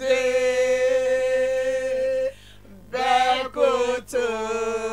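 A single voice singing without accompaniment: one long note held steady for about two seconds, a brief pause, a few shorter notes, then another long held note near the end.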